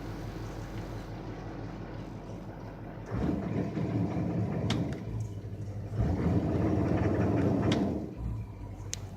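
Turbocharged vehicle engine idling, revved twice for a second or two each time, the second rev louder; the owner suspects a stuck EGR valve or a bad turbo.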